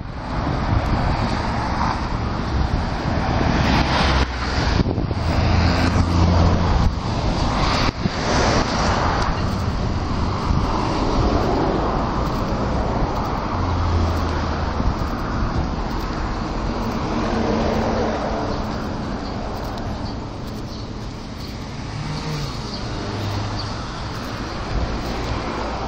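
Road traffic: cars and taxis driving past on a city street, a continuous rumble of engines and tyre noise. It is loudest in the first third and grows quieter later on.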